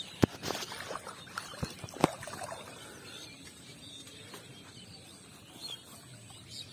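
Handling sounds of a bamboo fish trap being worked in shallow paddy water: a few sharp clicks and knocks in the first two seconds, then faint rustling.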